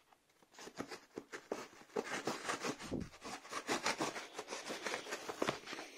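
Scissors cutting through a corrugated cardboard mailer, with the cardboard crinkling in the hands: an irregular run of short crisp snips and crunches.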